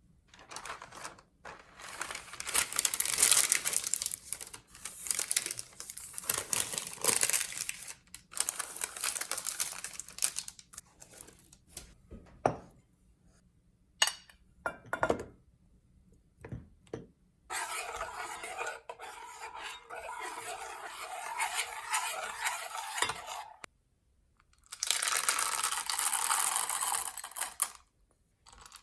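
Kitchen utensils scraping and clinking against bowls and pans, in stretches of a few seconds with short pauses between.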